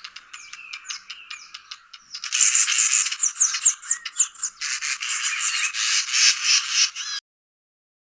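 A wild bird's song played back: fast, busy chattering with many quick high notes and short slurred whistles. It grows louder about two seconds in and cuts off abruptly near the end.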